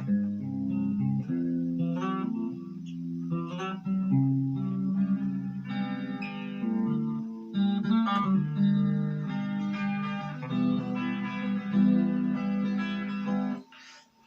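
Electric guitar played through a Marshall MG15GFX 15-watt combo practice amp on its clean channel with no effects, chords and notes let ring one into the next. The playing stops abruptly near the end.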